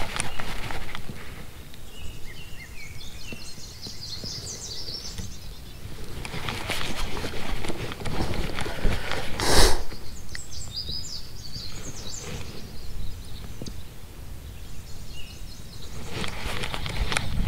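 Outdoor lake ambience: birds chirping over a low rumble and hand-handling noise from a baitcasting reel, with one sharp knock about ten seconds in.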